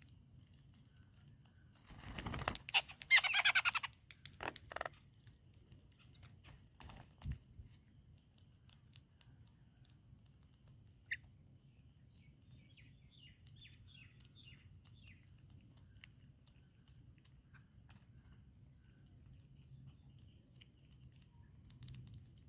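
Wild birds at a feeding spot: a brief flurry of wing flaps about two seconds in, followed at once by a loud, harsh call. After that come a few small clicks, a single short note and faint scattered chirps.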